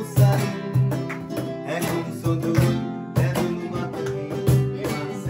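Acoustic guitar strummed in a steady, even rhythm, with people singing along.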